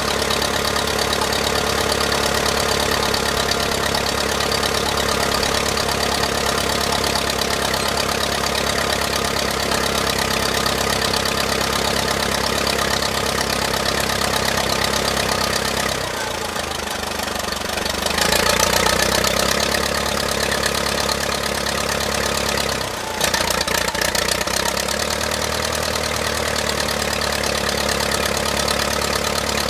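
1959 Case 311B tractor's four-cylinder gasoline engine running steadily, now firing after its distributor points were cleaned. Its note dips and then picks up louder a little past halfway, with another brief dip a few seconds later.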